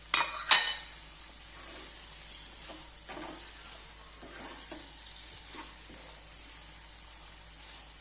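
Onion-and-spice masala sizzling in a frying pan while being stirred and scraped with a spoon, with two sharp knocks against the pan about half a second apart at the start.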